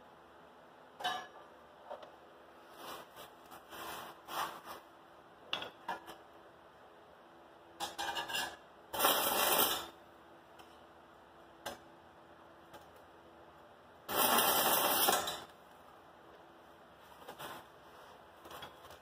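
Stick-welding arc from a 36-volt battery arc welder, struck in short bursts: two longer bursts of hiss, about a second and a second and a half long, between brief sputters and clicks.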